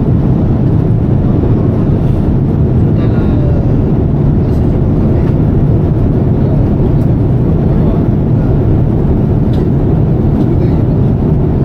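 Steady, low-pitched cabin noise of a Boeing 787 Dreamliner in cruise flight, the constant rumble of engines and airflow heard from a passenger seat.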